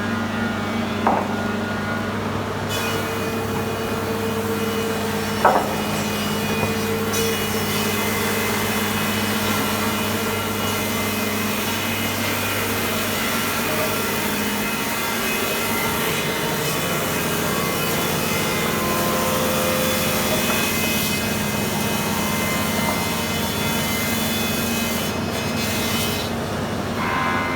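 QMB 206 F-H/K double-sided thickness planer running with a steady hum while a board is fed through and planed top and bottom; the cutting noise comes in about three seconds in and falls away shortly before the end, with a couple of sharp knocks in the first six seconds.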